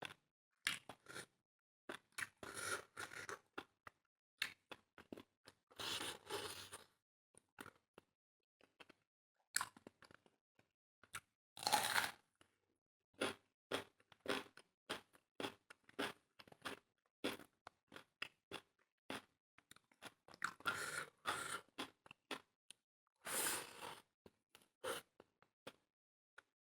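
Close-miked eating: steady small wet mouth clicks of chewing, broken by about five louder crunching bites of about a second each.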